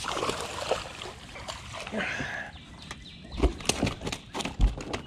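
Water splashing and sloshing as a fish is lifted out of the lake in a rubber-mesh landing net. About three seconds in come a run of knocks and several heavy thumps as the net and fish come down on the boat deck.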